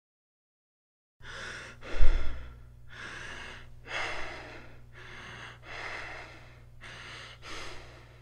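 Kussmaul breathing: deep, rapid breaths, each full noisy inhalation followed straight away by a full exhalation, about one breath every second and a half, the breathing of an acidotic state. The breaths begin a little over a second in, over a steady low hum, with a low thump about two seconds in as the loudest moment.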